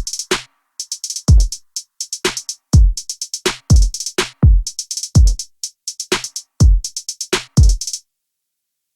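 Background music: a drum-machine beat of deep, pitch-dropping kick hits under quick runs of hi-hat ticks, cutting off near the end.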